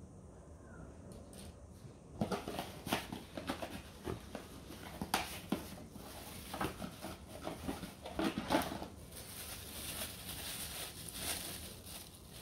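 Cable ties and plastic packaging being handled: a run of sharp clicks and rustles starts about two seconds in, then a clear plastic bag crinkles steadily from about nine seconds.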